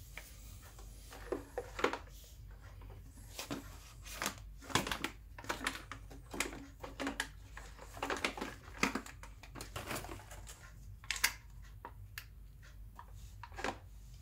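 Scattered plastic clicks, taps and scraping as a reverse osmosis membrane cartridge is handled and pushed into its housing.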